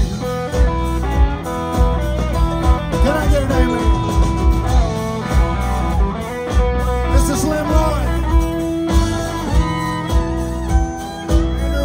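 Live country band playing through a PA: electric and acoustic guitars over drums that keep a steady beat, with some bent guitar notes.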